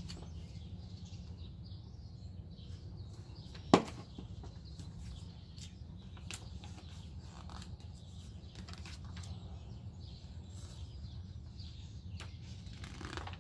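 Pages of a large paperback picture book being turned and flapped, with soft paper rustles and light ticks, and one sharp snap about four seconds in. A steady low rumble lies underneath.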